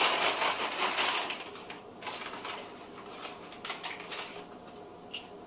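Paper lunch bag of popped popcorn being shaken to coat it with butter: a fast, dense papery rattle and rustle for about the first second, then a few separate crinkles and clicks as the shaking stops.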